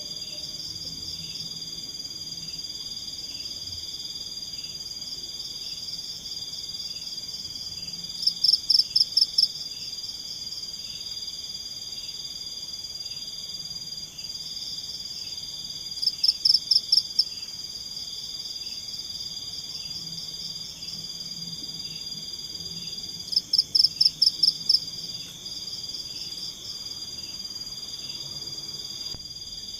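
Tropical forest chorus of insects and frogs: a steady high-pitched insect drone with a second pulsing trill beneath it. Three times, about every seven or eight seconds, a loud burst of some half-dozen rapid pulsed calls stands out.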